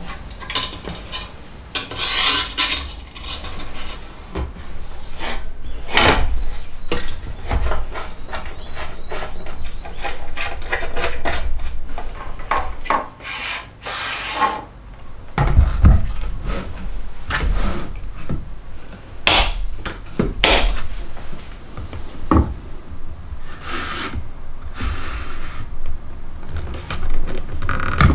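Workbench handling noises: wood and metal rubbing and scraping as a circular-saw edge guide, steel rule, tape measure and saw are positioned, with irregular knocks and clicks. No saw motor is running.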